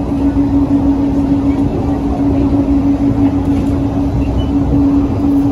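Skylink automated people mover, a rubber-tyred Bombardier Innovia APM 200 train, running along its guideway and heard from inside the car: a steady rumble with a constant droning hum.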